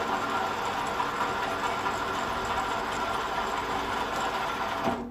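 Small hobby lathe running with its shop-made power feed engaged through a dog clutch and gear train: a steady mechanical whir from motor and gears that cuts off near the end.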